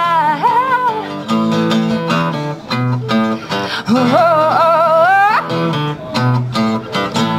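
Live acoustic duo: a steel-string acoustic guitar strummed in chords, with a woman's voice holding long sung notes, one ending about a second in and another rising in pitch near the middle.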